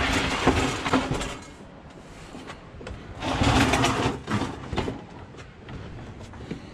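Old Dometic three-way fridge scraping as it is dragged out of its cabinet. There are two rough scrapes, each about a second and a half long, one at the start and one about three seconds in.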